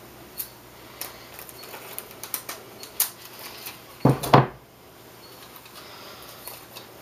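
Handling noise from wet paper gum tape being laid and pressed down onto a thin maple veneer sheet by hand: scattered small crackles and taps, then a louder, brief rub about four seconds in as the fingers press the tape flat.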